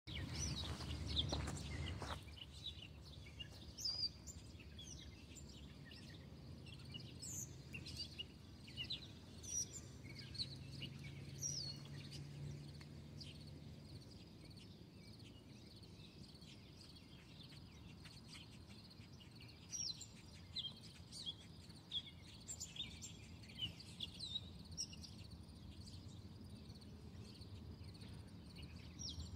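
Birds chirping and calling at intervals, faint, over a low steady hum that fades out about halfway through; a louder low rumble in the first two seconds.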